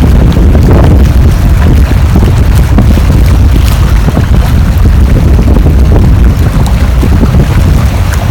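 Strong wind buffeting the microphone: a loud, continuous low rumble that flutters with the gusts.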